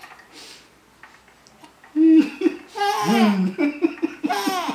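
Young baby laughing in short giggling bursts, starting about two seconds in after a quieter moment.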